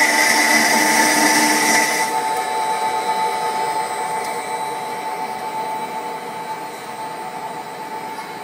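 Baileigh column-type circular cold saw cutting through a metal workpiece under coolant, a steady whine with a bright cutting hiss. The hiss stops suddenly about two seconds in, leaving the saw's steady whine, which grows gradually quieter.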